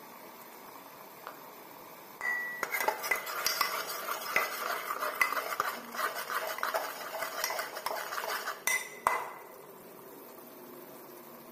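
A spoon stirring thick curry in an aluminium pressure-cooker pot, scraping and clinking against the metal sides with short ringing notes. The stirring starts about two seconds in and stops about two seconds before the end.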